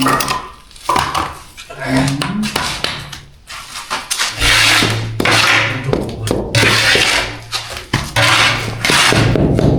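Repeated scraping and rubbing noises, joined by a steady low hum from about four seconds in.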